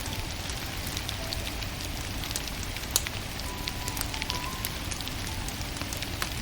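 Wood fire crackling with a steady stream of small snaps over a low even rumble, and one louder pop about three seconds in.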